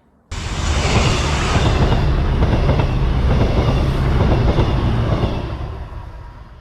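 A train passing close by on the railway line: a loud rumble and clatter that starts suddenly, holds, then fades away over the last second or so.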